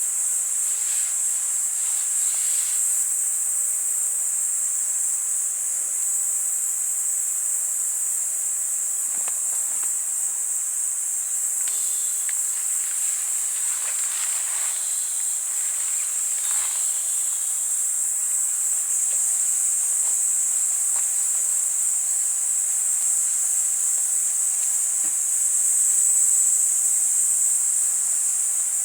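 Steady high-pitched insect chorus, with a few faint rustles and light knocks.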